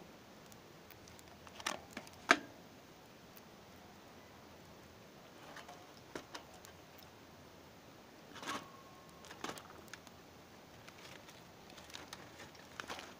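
A few scattered sharp clicks and knocks over a faint steady hiss, the loudest a single knock about two seconds in.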